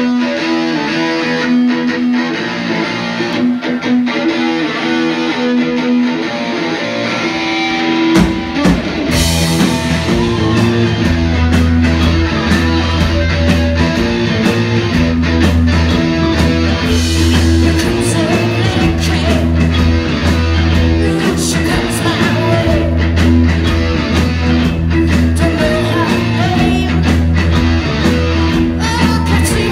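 Rock band playing live: electric guitar, bass, keyboard and drums. The opening is thinner, and the bass and drums come in about eight seconds in, filling out the sound for the rest of the song section.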